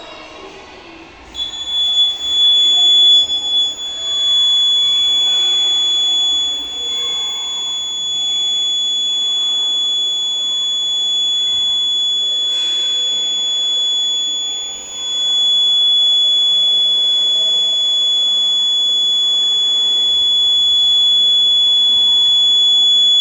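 Homemade science-project fire alarm sounding one steady, high-pitched continuous tone, starting about a second in.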